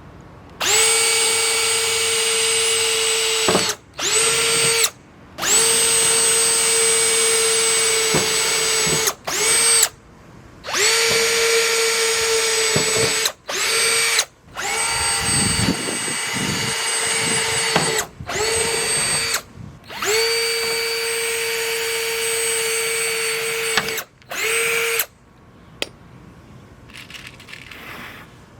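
Power drill running in about ten separate bursts of one to four seconds, each spinning up quickly to a steady whine and then stopping, as it drives screws to fit the final widebody kit piece to the car body.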